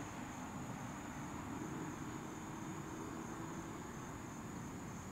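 Quiet outdoor ambience: a steady high-pitched insect drone over a faint low rumble, with no strike.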